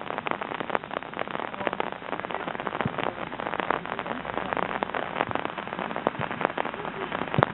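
Dense, irregular crackle of many small ticks and pops, steady throughout, with little low rumble.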